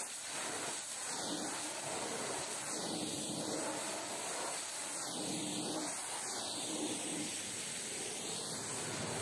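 High-pressure washer lance blasting a jet of water against a truck's tarpaulin curtain side and rear mudguard: a steady hissing spray.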